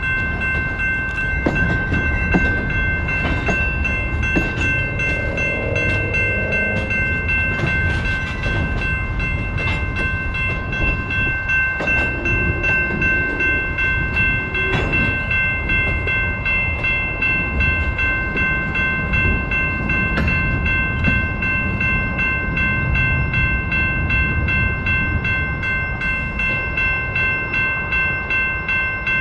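Freight train of tank cars and covered hoppers rolling past, the wheels giving a steady low rumble on the rails. Over it, a grade-crossing warning bell rings steadily with the signals flashing.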